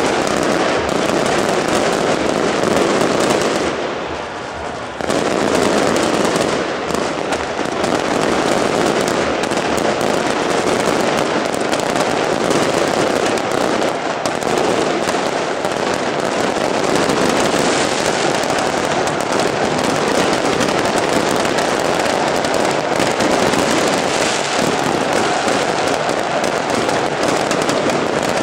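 Fireworks going off in rapid succession: a dense, continuous crackling and popping from aerial bursts and ground fountains, with a short lull about four seconds in.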